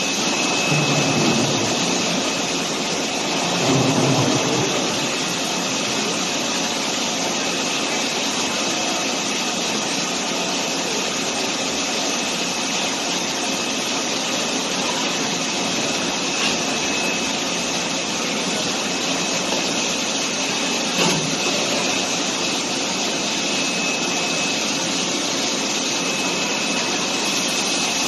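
Plastic injection molding machine running with the mold clamped shut: a steady loud hiss of machinery with a thin high tone over it. Two short low swells come about 1 and 4 seconds in, and a brief knock about 21 seconds in.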